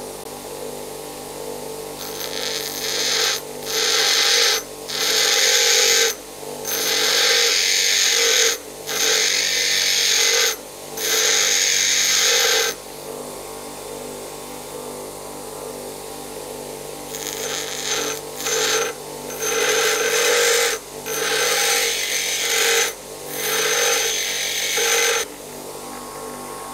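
Bench grinder running steadily while a high-speed steel lathe tool bit is pressed to the wheel in short passes of a second or two, giving a loud grinding hiss each time with brief breaks between. There are two runs of about six passes, with a pause of a few seconds in between, as back rake is ground onto the top of the tool.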